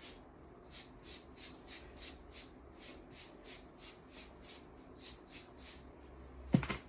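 A run of quick, even rubbing strokes, about three a second and a dozen and a half in all, like cloth or a brush being worked over something, then a sharp knock near the end.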